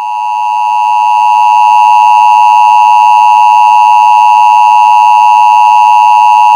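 Emergency Alert System two-tone attention signal: a loud, steady dual tone that swells over the first couple of seconds and then holds. It announces the tornado warning that is about to be read.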